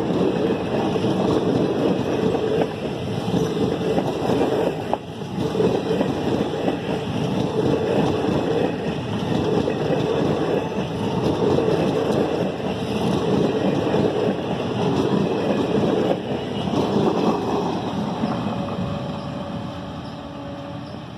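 Indian Railways passenger coaches rolling past at speed: a loud, steady rumble and rattle of wheels and bogies on the track. It fades away over the last few seconds as the train draws off.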